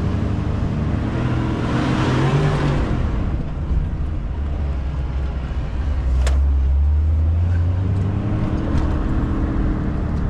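Jeep Wrangler engine running, heard from inside the cab as it crawls along a rough dirt trail. Its note swells twice under throttle over a steady rush of tyre and road noise, with one sharp knock about six seconds in.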